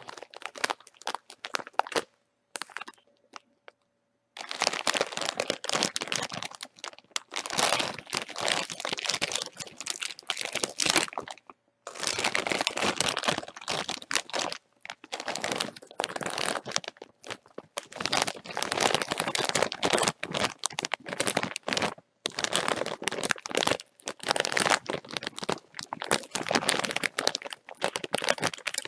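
Plastic chip bag being crinkled and crumpled by hand in irregular bouts. There is a brief lull about two seconds in, then nearly continuous crackling from about four seconds on.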